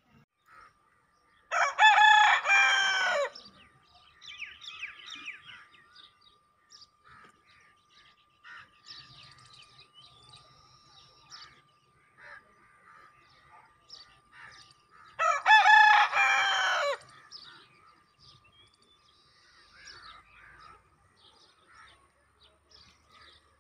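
A rooster crowing twice, each crow about a second and a half long, the second some thirteen seconds after the first, with faint bird chirps in between.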